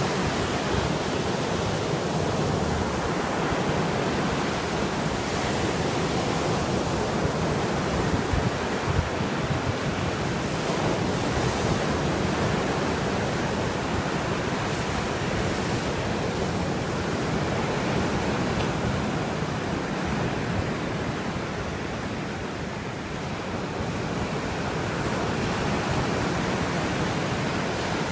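Caspian Sea waves washing onto the shore in a steady, unbroken wash of surf, with wind rumbling on the microphone.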